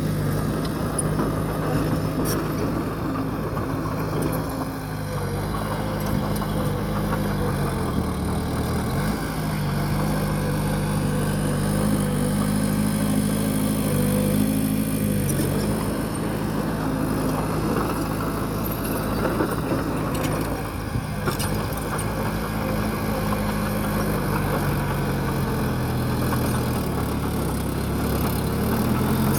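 Bulldozer's diesel engine running steadily. Its pitch dips about eight seconds in and again near the end, then picks back up.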